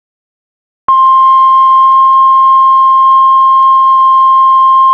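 Heart monitor flatline alarm: a single steady high beep starts about a second in and holds unbroken. It is the continuous tone that signals no heartbeat is being detected.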